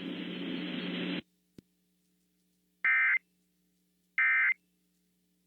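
Emergency Alert System end-of-message SAME data bursts: two short electronic bleeps about a second and a half apart, with a third starting at the very end. Before them, about a second of broadcast hiss cuts off, followed by a faint click.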